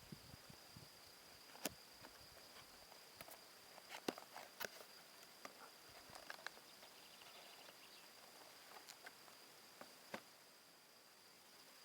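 Quiet handling noises: scattered light clicks and taps, a few sharper ones about 2, 4 and 10 seconds in, over faint hiss with a steady high-pitched whine.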